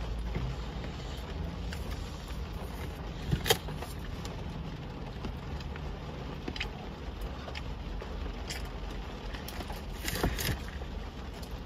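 Steady low rumble of a car heard from inside the cabin, with a few sharp clicks, the loudest about three and a half seconds in and a short cluster around ten seconds in.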